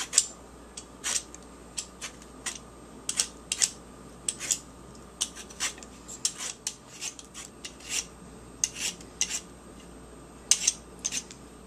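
Knife chopping lemon zest on a cutting board: short, sharp taps, unevenly spaced, about one to two a second.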